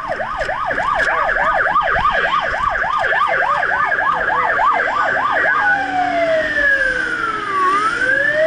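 Rural Fire Service fire truck's electronic siren heard from inside the cab. It runs a fast yelp of about three and a half sweeps a second, then switches a little over halfway through to a slow wail that falls and begins to rise again.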